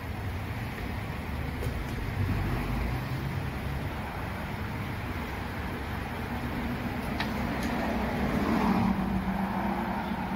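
Road traffic noise: cars running steadily on the roadway, with one vehicle's hum growing louder as it approaches and passes in the second half.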